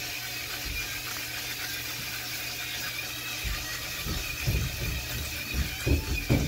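Burger patties and an egg sizzling steadily on a flat-top griddle, with soft thumps of a seasoning shaker being shaken over them, more frequent in the second half.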